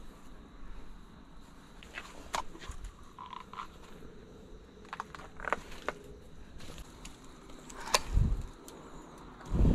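Hammock fabric and rope being handled: scattered faint rustles and clicks. Near the end come a sharp click and two low thumps as the hammock takes a person's weight.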